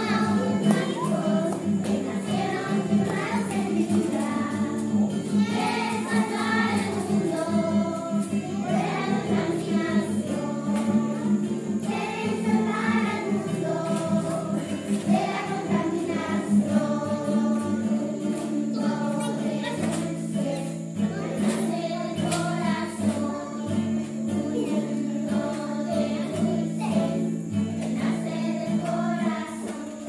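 A group of children singing a song together, accompanied by acoustic guitar and keyboard.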